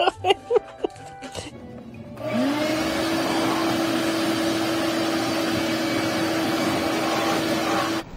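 A handheld electric fan-motor appliance switches on about two seconds in: its whine rises quickly and then holds steady under a loud rush of air. It cuts off abruptly near the end.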